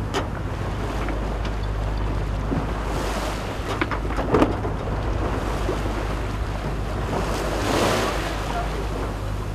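Wind buffeting the microphone over the rush of choppy sea and breaking wash around a sailing yacht under way, with a steady low hum underneath. A few sharp knocks come about four seconds in, and a louder surge of water near eight seconds.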